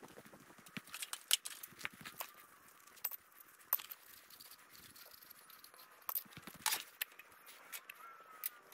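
Scattered light clinks and knocks of small aluminium parts and tools being picked up and set down on a steel welding table, with a few sharper taps among them.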